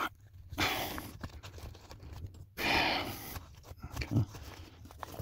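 A small tubing cutter being worked around a half-inch copper pipe: faint clicks and scrapes, with two louder rushing sounds under a second long, about two seconds apart.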